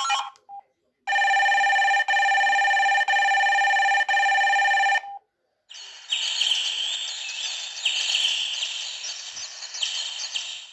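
Samsung SGH-E330 mobile phone playing its built-in sounds through its speaker: a steady buzzing tone in four one-second pulses, back to back. Then about five seconds of recorded bird chirping that stops abruptly.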